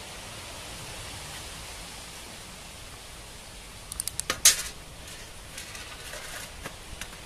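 Metal handling noise over a steady hiss: a quick run of sharp metallic clicks about four seconds in, ending in one loud clank, then a few lighter taps, as an overhead fishing reel is handled over a steel tray.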